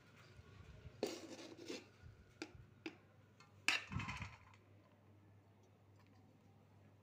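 Metal spoon scraping and clinking against a metal pot and steel plate while scooping out cooked biryani rice: a scrape, a couple of sharp clicks, then the loudest clink a little past halfway.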